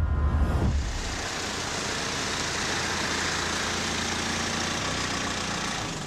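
A deep low rumble in the first second, then a car engine idling steadily.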